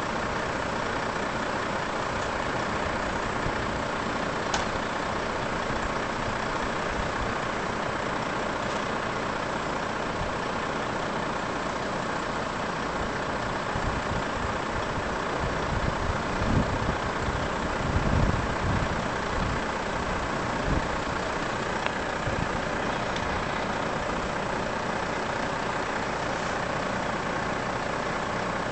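Heavy truck's diesel engine idling steadily while the truck stands coupled to its trailer. A run of low thumps comes a little past the middle.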